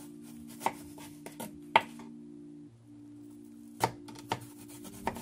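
Chef's knife slicing peeled eggplant into thin strips, its blade knocking down on a plastic cutting board in about six sharp, irregular taps, the loudest near the middle.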